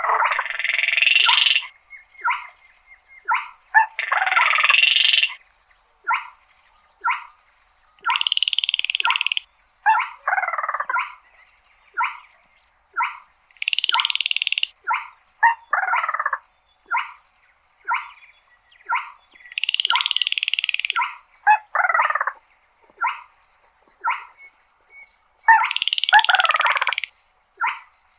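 Baillon's crake calling: short sharp notes about once a second, broken every five or six seconds by a longer, dry, frog-like rattle, several of them ending in a falling note.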